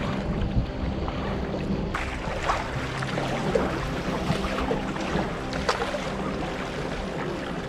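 Inflatable kayak being paddled with a double-bladed paddle: the blades dip into the water in regular strokes, a short splash about every three-quarters of a second, over a steady low hum.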